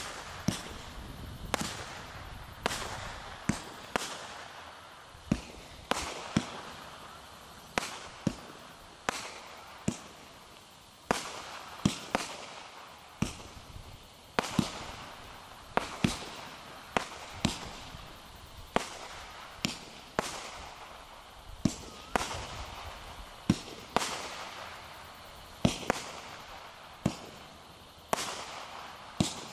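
Shogun 25-shot glittering crossette cake firing: sharp bangs about once a second, some in quick pairs, with a fizzing hiss of glittering stars between them.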